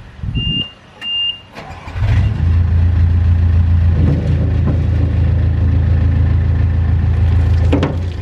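Mustang 940E skid steer's Yanmar diesel starting: two short high beeps and a few low surges, then the engine catches about two seconds in and runs on steadily.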